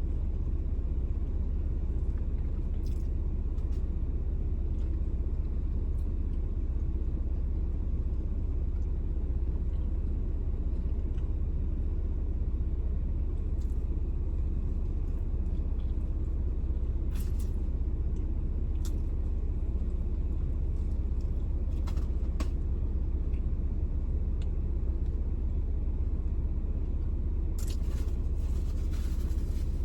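Steady low rumble of a car idling, heard from inside the cabin, with a few faint clicks now and then.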